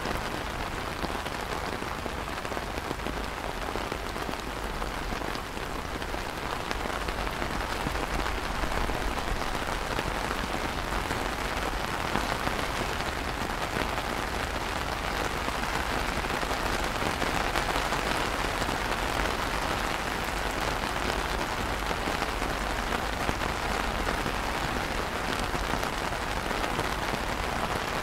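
Steady rain falling on wet stone paving and puddles, a dense even patter that grows a little louder after the first several seconds.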